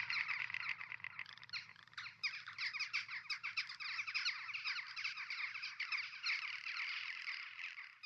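Dense outdoor chorus of calling animals: many quick chirps overlapping continuously, with a faint low hum beneath, starting to fade near the end.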